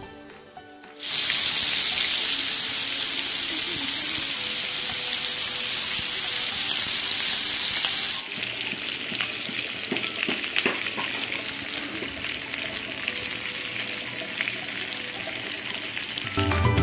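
Masala-coated chicken pieces frying in oil in a pan. A loud, steady sizzle starts about a second in and drops at about eight seconds to a quieter, crackling sizzle.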